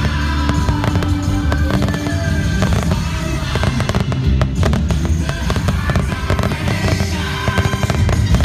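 Fireworks going off in a dense run of bangs and crackles, over loud music.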